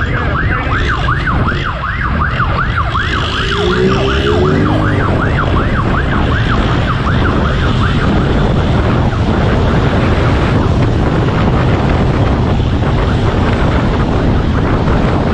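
Police siren in a fast yelp, about four rises a second, fading out about halfway through, over continuous heavy wind and road noise from the moving pursuit vehicle.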